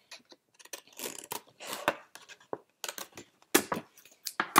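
Small scissors snipping through pink construction paper in short, irregular cuts, with the paper rustling as the sheet is turned; the sharpest snips come near the end.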